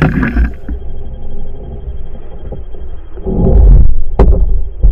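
Low, irregular rumbling and buffeting on the microphone. About three seconds in comes a loud scuffle as a gummy shark in a landing net is hauled over the side of a boat, followed by a single sharp knock.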